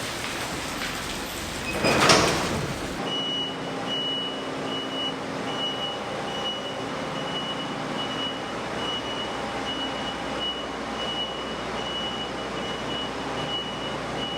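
A vehicle engine running steadily, with a thin high tone sounding on and off above it; a brief whooshing swell comes about two seconds in, before the steady part.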